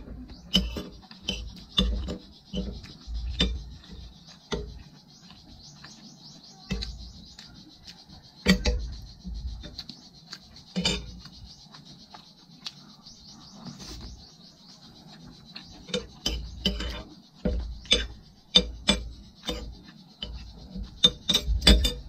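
Metal spoon and fork clinking and scraping against a ceramic plate of rice, in irregular strokes. The strokes thin out twice and come quickly near the end.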